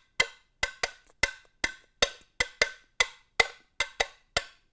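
Two small sardine tins played as tamborim-style percussion: sharp, short metallic clacks in a steady rhythm, about four to five strokes a second, each with a brief ring.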